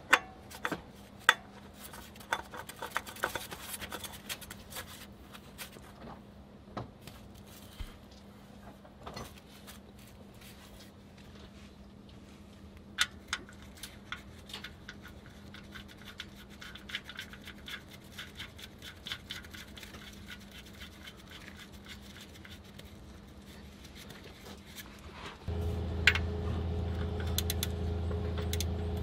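Small clicks, taps and scrapes of hand work under a van: the oil drain plug being threaded back into the oil pan by hand, then turned with a ratchet wrench that clicks near the end. About 25 seconds in, a steady low hum starts abruptly and runs under the ratcheting.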